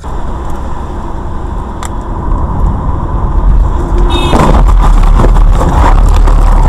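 Car cabin noise from a dashcam: engine and tyre rumble on a wet road, growing much louder and heavier about four seconds in, with a brief high chirp as it swells.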